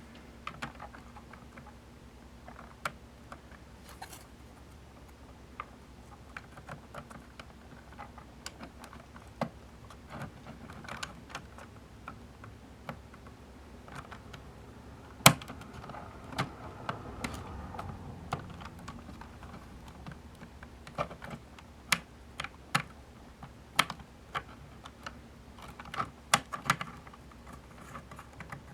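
Irregular light clicks and taps of acrylic case panels and small hardware being handled and pressed into place as the top panel of a DSO138 oscilloscope case is fitted, with one sharper click about halfway through.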